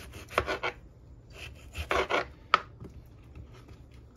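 Kitchen knife slicing through peeled squash on a plastic cutting board: two short groups of cutting strokes in the first two seconds, then one sharp tap of the blade on the board about two and a half seconds in, followed by faint small knocks.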